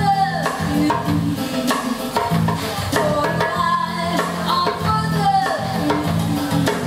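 A woman singing live into a microphone over keyboard accompaniment with a steady percussion beat.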